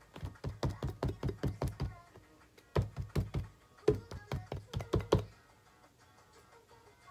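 A plastic tub of slime shaken hard, the slime thudding inside it in quick strokes about five or six a second, in two runs with a short pause between, the second starting about three seconds in. Quiet guitar music plays underneath.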